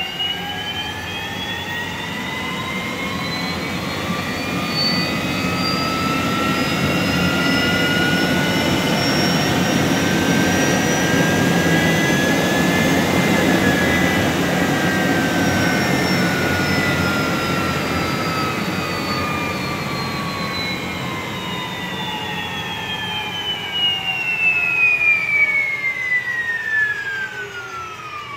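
Tesla small drive unit's electric motor and reduction gears on a test bench, whining in several pitches. The whine rises steadily as it spins the wheels up to about 105 mph, peaks around halfway, then falls steadily as the unit slows under light regenerative braking set to 5%. Beneath it is a rushing noise that swells and fades with the speed.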